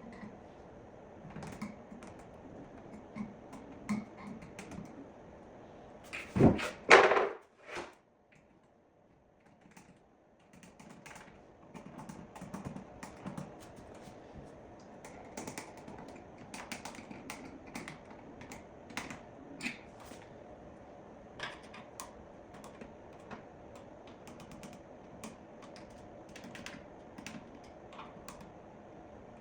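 Irregular light clicks and taps, with a loud double knock about six to seven seconds in, then a short near-silent gap before the clicking resumes.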